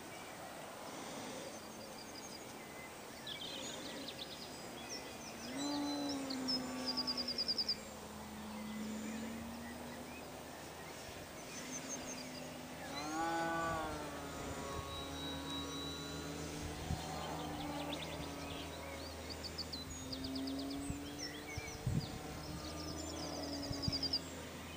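RC model plane's motor and propeller humming in flight, the pitch rising and falling again and again. Small birds chirp in short high trills, about a few seconds in and again near the end.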